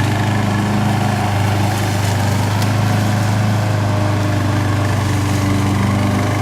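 Evatech Hybrid GOAT 22T remote-control slope mower running with a steady, even engine hum.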